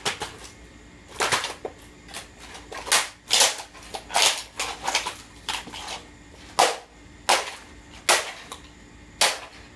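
A dozen or so sharp hammer blows on an old Magnavox amplifier as it is smashed apart, coming irregularly in quick clusters with short pauses between them.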